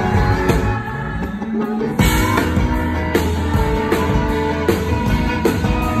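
Live rock band music: a woman singing with electric guitar, bass and drums. About a second in the low end drops back under a rising bass slide, and the full band comes back in with a loud hit at about two seconds.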